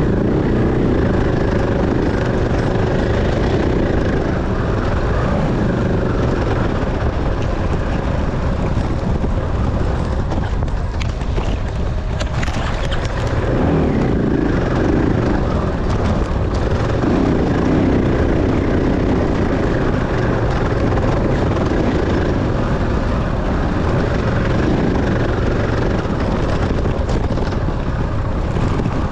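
Dirt bike engine running hard through an enduro race course, revs rising and falling again and again. A few sharp knocks come near the middle.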